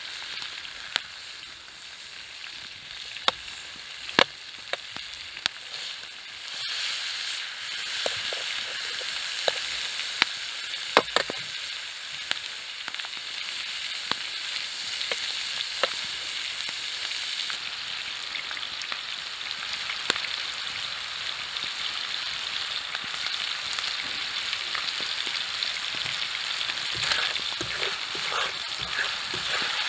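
Ground beef sizzling in a frying pan over a campfire, with sharp ticks and scrapes as a fork breaks up the meat against the pan. The sizzle gets louder a few seconds in.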